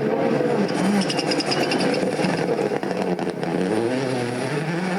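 Rally car engine revving hard, its pitch rising and falling several times as it accelerates.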